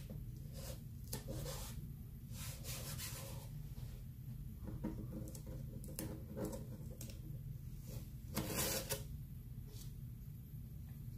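Scraping and rubbing strokes of a craft squeegee working chalk paste across a stencil transfer: a series of short, irregular strokes, the longest and loudest about eight and a half seconds in.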